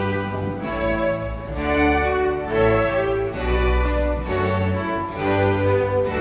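Music from a string ensemble, violins over a cello line, playing classical music in long held notes that change one after another.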